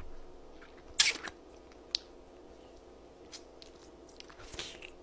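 A person eating fried chicken off the bone close to the microphone. There is one loud bite about a second in, then quiet chewing with a small click, and another bite near the end.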